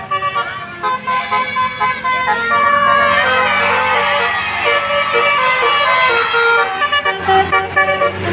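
Telolet bus horn, a multi-tone musical air horn, playing a rapid tune of short held notes that step up and down in pitch, one after another.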